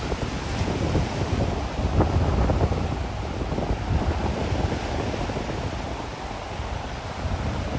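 Wind buffeting the microphone over the wash of gentle sea waves on the shore, gustiest about two seconds in and easing later.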